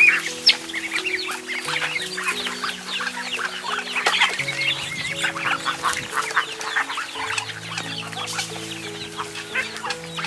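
A mixed flock of chickens and ducks calling, with many quick peeps and clucks, over soft background music with long held notes.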